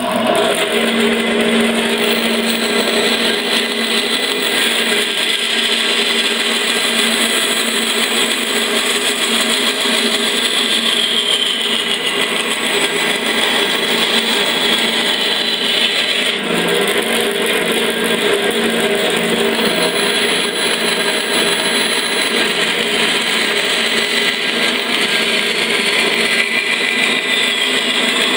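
Band saw running steadily while a small piece of wood is fed through the blade and cut. Its motor hum and blade noise stay steady, with slight shifts in tone as the blade meets the wood.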